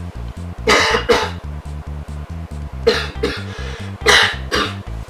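A man coughing hard in three pairs of short bursts, over background music with a steady low beat.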